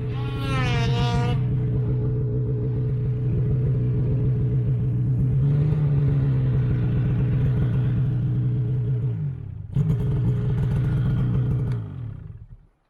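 Snowmobile engine running at a steady speed. Near the end its pitch drops and the sound cuts off.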